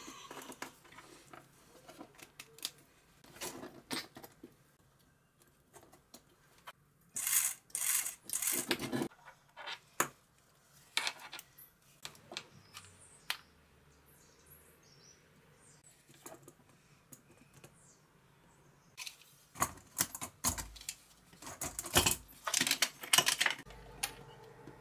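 Scattered clicks, taps and rattles of hands handling the plastic housing of an electric grater, its wiring and a hot glue gun. There are louder clusters of clicks about seven to nine seconds in and again from about nineteen seconds in.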